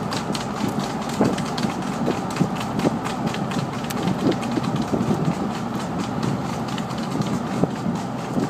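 Steady road and engine noise from a moving vehicle, with a running clatter of trotting horses' hooves on tarmac.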